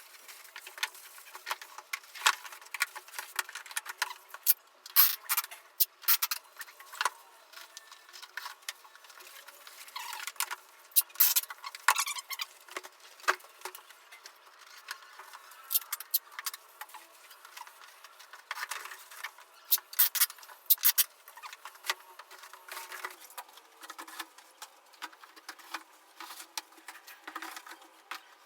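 Irregular clicks, taps and light rustling from gear and packaging being handled, with louder clusters of clicks at a few points.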